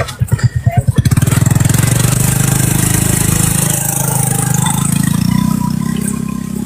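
Motorbike engine running close by: uneven low pulses for about the first second, then a steady run with the pitch rising a little and easing off again near the end.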